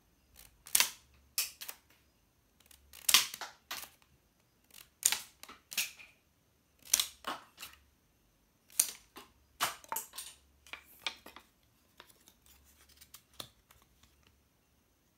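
Wooden rubber-band gun firing its bands one after another, each release a sharp snap, with small wooden targets clacking as they are hit and knocked over. The snaps and clacks come every second or two for about ten seconds, then give way to a few faint clicks of the gun being handled.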